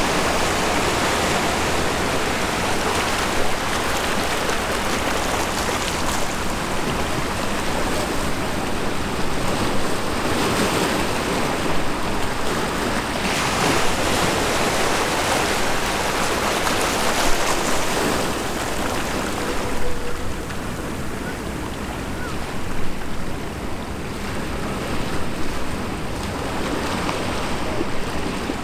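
Steady rushing noise of wind and water, with wind buffeting the microphone over the sound of water moving at the shore or hull.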